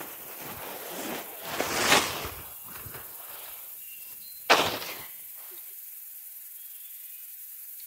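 Fabric of a pop-up privacy tent rustling and swishing as its folded arches are laid down, swelling about two seconds in. A short sharp slap comes about four and a half seconds in.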